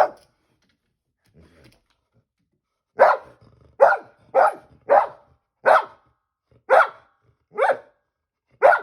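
Dog barking repeatedly in short, loud barks, about eight in a row after a pause of a few seconds. It is excited barking at birds settling on the house and the wires outside.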